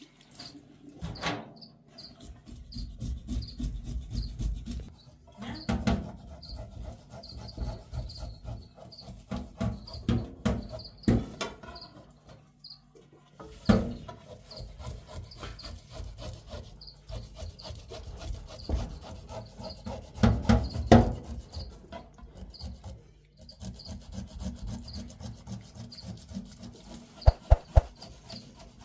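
Rough scraping and rubbing with several sharp knocks, over a short high chirp repeating about twice a second.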